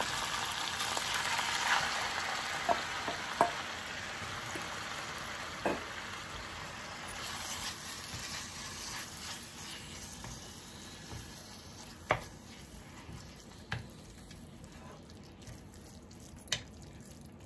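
Raw minced beef sizzling in hot oil in a frying pan as it is tipped in and stirred with a wooden spatula. The sizzle is strongest at first and dies down gradually, with a few sharp taps of the spatula against the pan.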